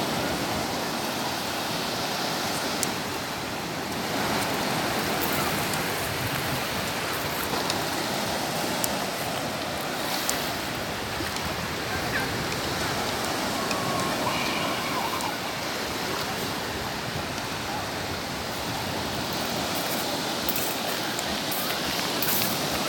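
Sea surf washing onto the shore, a steady rushing noise that swells and eases.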